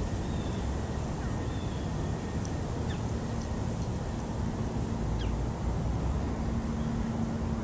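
Outdoor park ambience: a steady low rumble with a few short, high bird chirps scattered through it. A low steady hum comes in about three seconds in and is stronger near the end.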